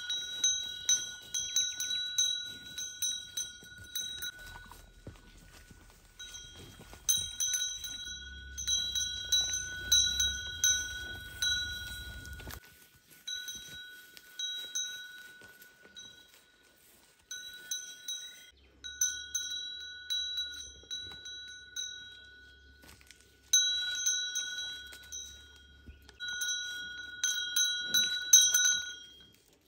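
A small metal bell on a cow's collar, ringing over and over as the cow moves, a few strikes a second, in runs broken by short pauses.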